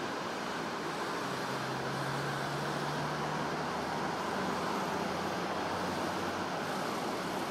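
Steady rumble of road traffic mixed with an approaching freight train: a DB Class 185 electric locomotive hauling tank wagons. A faint low hum comes and goes.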